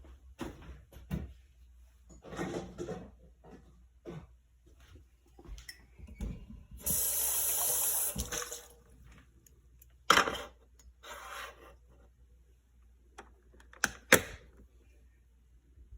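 Water running from a tap for about two seconds, about halfway through, amid scattered clicks and knocks of things being handled; the loudest single knocks come about ten and fourteen seconds in.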